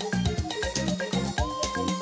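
Background music with a steady beat, about four light ticks a second over a bass pattern; a held melody note slides in about one and a half seconds in.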